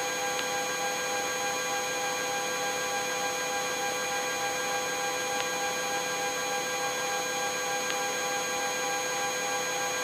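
Eurocopter EC135 helicopter in flight, heard through the cockpit intercom: a steady whine of several fixed high tones from the turbines and drivetrain over a light hiss, with a few faint clicks.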